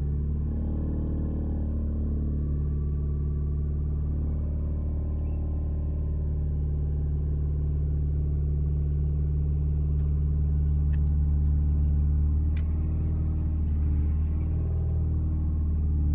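Audi A4 B8 running with a steady low drone made of several stacked tones, which shifts slightly in pitch and level a few times; a few faint clicks come through near the middle. This is the noise that the owner calls strange and that appeared after the clutch was replaced.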